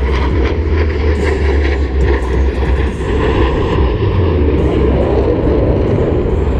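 Jet roar from Blue Angels F/A-18 Hornets flying over, a loud steady rumble with no clear rise or fall.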